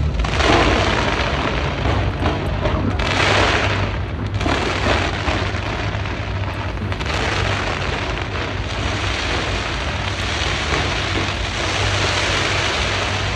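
Aerial fireworks going off in a dense, continuous barrage: many overlapping booms and crackling bursts with no real pause.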